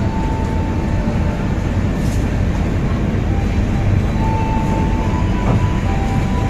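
Diesel-hauled passenger train running at the platform: a steady, loud low rumble, with a thin whine that comes and goes.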